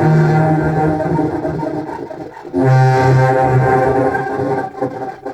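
Contrabass clarinet played through an effects pedalboard with a Walrus Fable granular delay, heard over studio speakers: low sustained notes rich in overtones, a new note swelling in about two and a half seconds in, then fading away near the end.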